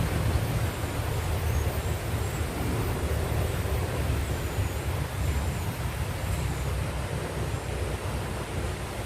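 Steady outdoor rushing noise with a heavy low rumble, typical of wind buffeting the microphone beside flowing river water. Faint short high chirps come through now and then.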